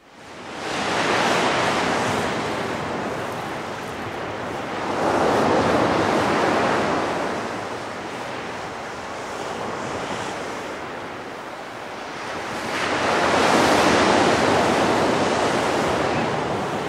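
Ocean surf washing onto a sandy beach: a steady rush of breaking waves that swells louder about a second in, again around five seconds, and again around thirteen seconds.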